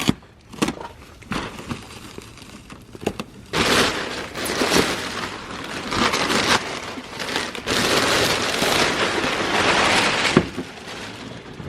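Crinkling and rustling of material being handled, with scattered sharp clicks at first, then a dense stretch of about seven seconds from roughly three and a half seconds in.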